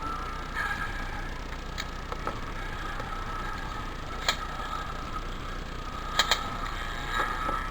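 Airsoft guns firing scattered single shots: a couple of faint pops in the first two and a half seconds, a sharp pop about four seconds in, and a quick pair of pops just after six seconds, over a steady background hiss.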